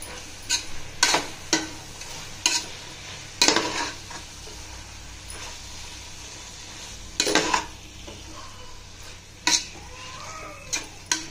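Oyster mushrooms sautéing in a pan of onion-tomato masala, stirred with a spoon. A steady sizzle runs throughout, and the spoon scrapes and knocks against the pan about nine times at irregular intervals.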